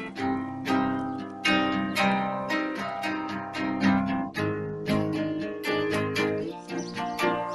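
Background music: acoustic guitar picking notes in a quick, even rhythm.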